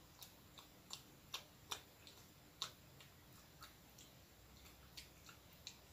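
Faint, irregular wet clicks and smacks from a mouth chewing soft bread, a dozen or so, the strongest between one and three seconds in.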